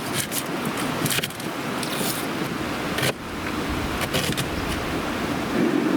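Scattered clicks, knocks and scrapes of cooking gear being handled, over a steady background hiss.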